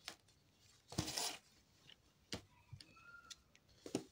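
Crochet hook and yarn being worked by hand: soft rustling with a few light clicks, the loudest a brief rustle about a second in.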